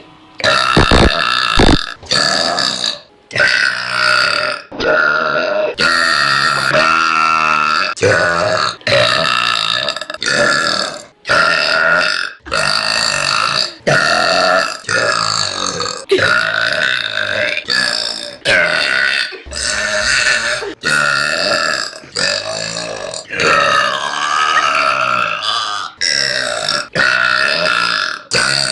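A young woman's loud burps, some two dozen of them, each about a second long, edited back to back with abrupt cuts between them.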